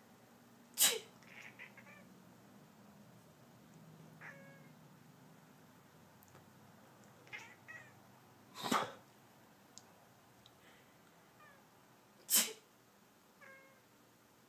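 A person sneezes three times: loud, sharp bursts about a second in, near the middle and near the end. A sleeping cat, disturbed by the sneezing, answers with brief short meows between the sneezes.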